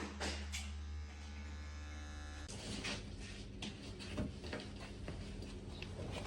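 A small electric motor buzzing steadily, cutting off about two and a half seconds in, followed by scattered clicks and knocks.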